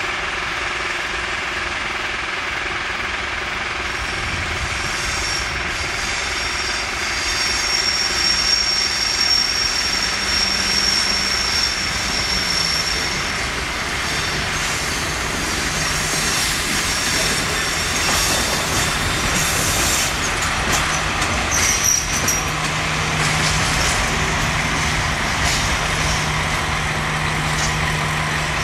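LDH diesel-hydraulic locomotive running as it hauls a freight train slowly past, with wagon wheels rumbling over the track. A high thin squeal runs for a few seconds about a third of the way in. The locomotive's low engine drone grows stronger in the second half as it draws alongside.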